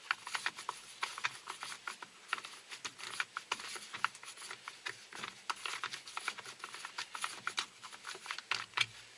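Plastic side cover of a DeWalt 12-inch cordless chainsaw being worked loose and lifted off by hand: a run of irregular small clicks and ticks of plastic and metal parts.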